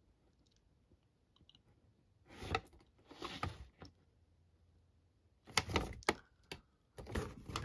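Paper pamphlet rustling and crinkling as it is handled and turned over, in a few short bursts about two to four seconds in and again near the end.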